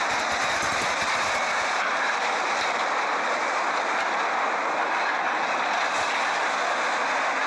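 Steady mechanical noise with a faint rattle of a heavy truck and low-loader trailer rolling slowly over a ferry's steel loading ramp.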